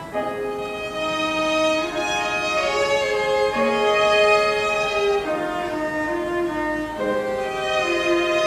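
Piano trio playing classical chamber music, the violin carrying a melody in long held notes over sustained lower cello notes.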